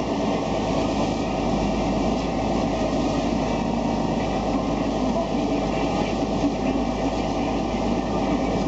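Boat engine running steadily, heard from on board, under an even rush of noise.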